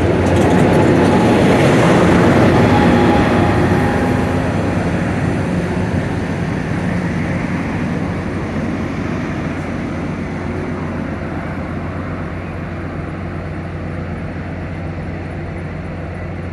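Amtrak Capitol Corridor passenger train running through the station, pushed by a Siemens SC-44 diesel locomotive: wheel-on-rail rumble over the steady low drone of the diesel. It is loudest about two seconds in, then slowly fades as the train moves away.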